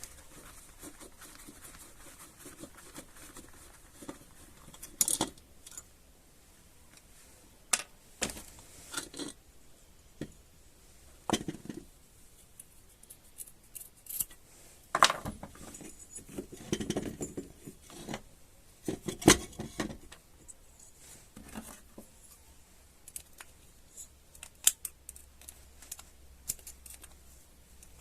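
Irregular clicks, taps and scrapes of tools and small hard parts being handled while working on a chainsaw's recoil starter, with a longer scraping stretch about two-thirds of the way through.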